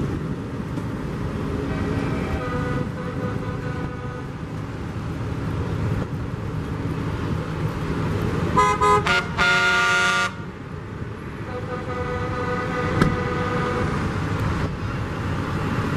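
Vehicle horn honking: three quick toots, then one longer blast of about a second, over the steady running of slowly passing truck engines.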